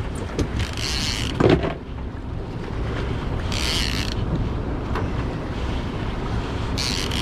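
Small boat under way in choppy water: a steady low rumble of wind on the microphone and water against the hull, with three short bursts of hissing spray about three seconds apart and a single thump about a second and a half in.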